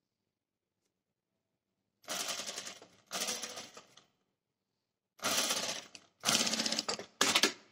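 Industrial lockstitch sewing machine stitching in five short runs with brief pauses between, starting about two seconds in, each run a rapid even patter of needle strokes as gathered fabric is sewn to a panel.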